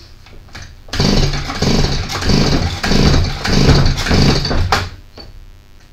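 Stihl MS170 two-stroke chainsaw's recoil starter pulled several times in quick succession, the engine cranking over without firing while a compression tester sits in the spark plug hole. The gauge shows under 25 percent: low compression, which points to piston rings that are bad or not seated.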